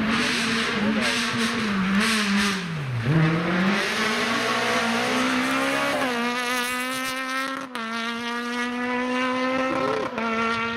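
Rally car engine driven hard. The revs fall and climb again about three seconds in as it brakes and shifts, then the engine holds a steady high-revving note with a brief break for a gear change about three-quarters of the way through.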